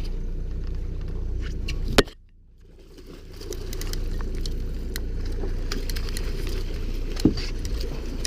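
Boat motor running steadily at trolling speed, with small clicks and rattles. A sharp knock comes about two seconds in, the sound drops away for about a second and then returns, and a second knock comes near the end.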